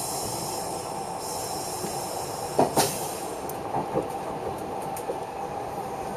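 Odakyu electric express train running along the track, heard from inside the front car: a steady running rumble, with a sharp double knock of wheels crossing the rail about two and a half seconds in and two lighter knocks about a second later.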